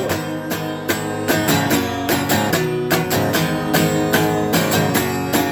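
Instrumental music with no vocals: guitar playing a steady run of plucked and strummed chords.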